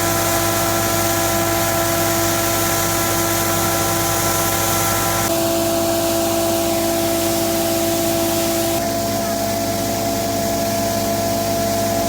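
Combine harvester running steadily while harvesting soybeans: a loud, constant mechanical noise with several steady tones. The mix of tones shifts abruptly about five seconds in and again a few seconds later.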